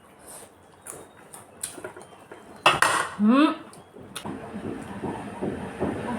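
Cutlery and dishes clinking with scattered clicks during a meal, with one loud clatter a little under three seconds in. Right after it a short voice sound rises in pitch.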